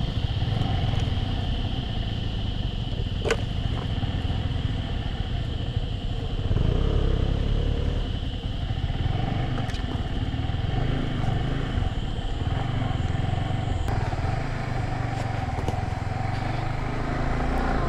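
Yamaha R15's 155 cc single-cylinder engine running steadily as the motorcycle rides slowly over a rough dirt trail. There is a single sharp click about three seconds in.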